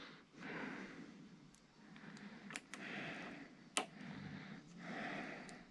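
A person breathing slowly through the nose close to the microphone, a soft breath about every two seconds, with a few small sharp clicks from handling parts.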